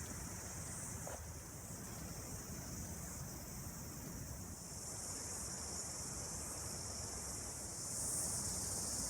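Steady high-pitched chorus of insects, growing a little louder near the end, over a low steady rumble.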